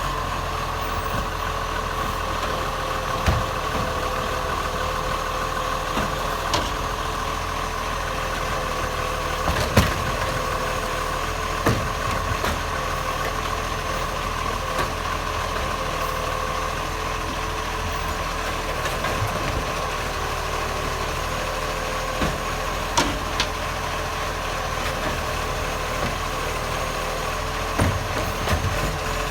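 Acco side-loader garbage truck's diesel engine idling steadily, loud with its exhaust leak, under a steady high whine. A few short sharp knocks come through on top.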